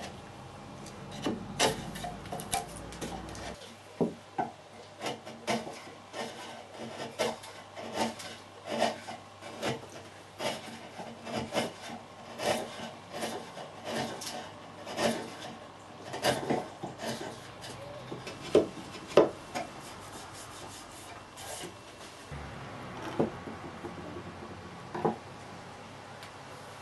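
Steel chisel paring shavings from seasoned cherry wood: a run of short scraping cuts, about one or two a second and uneven in strength, thinning out in the last few seconds.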